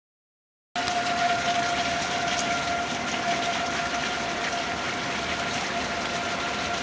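Steady rushing of storm wind with a constant whine over it, cutting in abruptly just under a second in.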